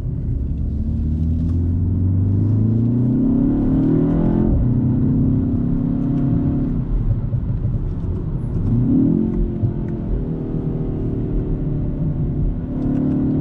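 BMW X1 M35i's turbocharged 2.0-litre four-cylinder engine heard from inside the cabin, pulling hard in its sportiest setting. The engine note climbs in pitch, drops at each gear change and climbs again, with the first shift about four seconds in.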